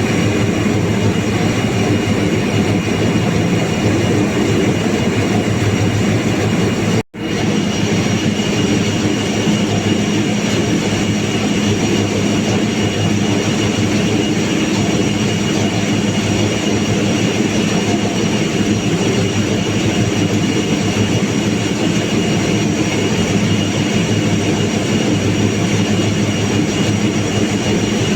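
Stainless-steel welding: a steady, loud, noisy hiss over a low hum, with a thin high whine held throughout. The sound cuts out for an instant about seven seconds in.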